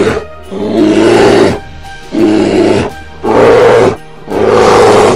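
Bear roaring: four loud, rough growling roars, each under a second long and about a second apart, over background music.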